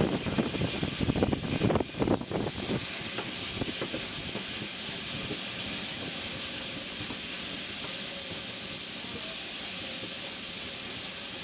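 Steam locomotive pulling a train away from a station, heard from a carriage window: irregular low rumbling and thumps for the first two seconds or so, then a steady high hiss of escaping steam.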